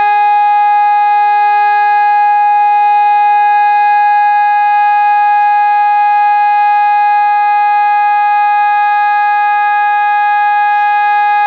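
Civil defence warning siren sounding during a siren test, loud and holding one steady pitch without rising or falling. This is the continuous tone used in Germany for the all-clear (Entwarnung) signal.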